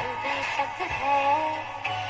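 A song with a singing voice playing from a Harman car stereo head unit through test speakers, a sign that the unit is producing sound again after its motherboard was replaced.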